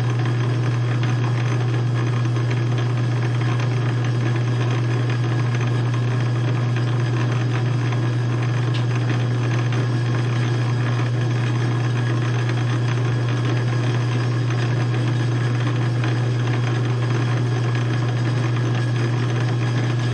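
South Bend lathe running steadily while knurling a part, its knurling tool pressed into the turning work: a constant motor hum under a dense, steady rasp.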